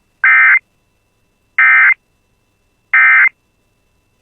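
Emergency Alert System SAME digital data tones: three identical short warbling bursts, each about a third of a second, a little over a second apart. It is the end-of-message code that closes the alert.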